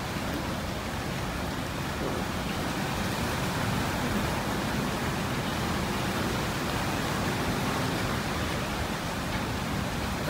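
A steady, even hiss of background noise with nothing standing out from it.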